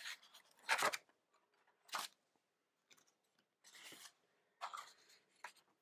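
Sheets of painted paper being handled and moved on a tiled surface: several short rustles and swishes, about a second apart.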